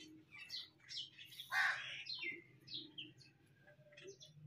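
Birds chirping: a run of short, high calls that slide downward, with one louder call about a second and a half in.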